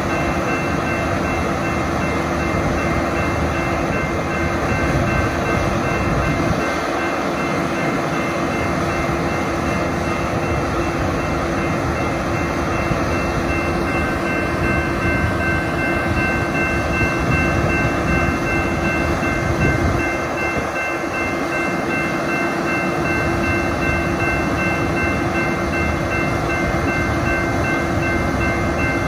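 Diesel engine of a BNSF Brandt road-rail truck running steadily at close range while the truck works on the track, with a grade-crossing bell ringing alongside.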